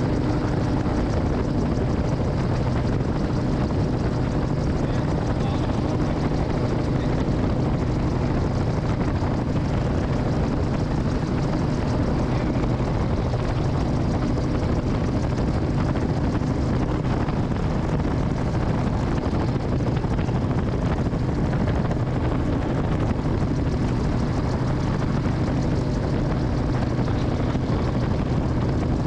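Titanium gyroplane in cruise flight, heard from the rear seat: its engine and propeller drone steadily with an even rush of air. The drone holds a constant pitch throughout.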